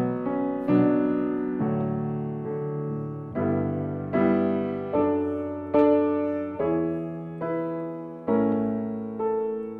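Piano playing a slow chordal passage with a melody, a new chord struck just under once a second, each ringing and fading before the next.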